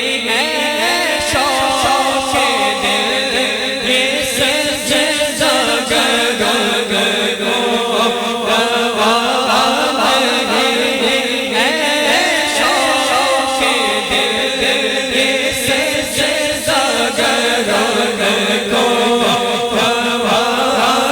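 Devotional naat singing: a long, drawn-out melodic vocal line over a steady chanted backing, without a break.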